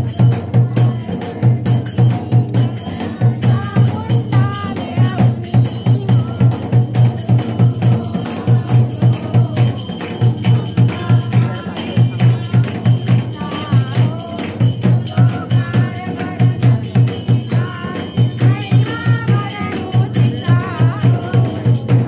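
Devotional aarti music: a steady, regular low drum beat with jingling percussion and singing over it.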